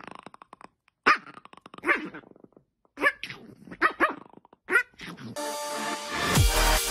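A dog hidden under a fuzzy blanket barking and growling at a hand poking at it, in a run of short bursts. About five seconds in, loud electronic dance music cuts in.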